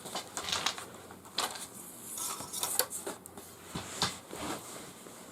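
Light clicks, taps and rustles of hands handling fishing line and small tackle while a double chichiwa loop knot is worked.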